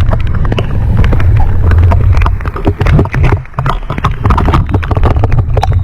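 Heavy wind rumble on the microphone from riding a bicycle through a rainstorm, with many sharp taps and clicks scattered throughout.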